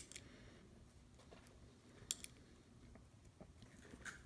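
A few sharp, faint plastic clicks and ticks as the light bar of a 1/64 diecast model car is worked and pushed out of its mounting holes in the roof. The loudest click comes about two seconds in, with others at the start and just after four seconds.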